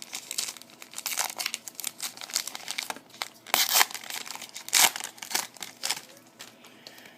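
Plastic wrapper of a trading-card pack crinkling as it is handled, with two louder tearing strokes about halfway through as the pack is ripped open.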